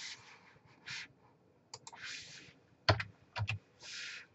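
A few sharp clicks of computer keyboard keys being typed, a close pair a little under two seconds in and more around three seconds in, with a soft hiss between them.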